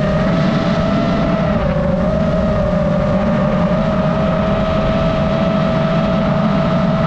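DJI FPV drone's motors and propellers whining steadily in flight, the pitch dipping slightly about a second and a half in, over a loud low rushing noise.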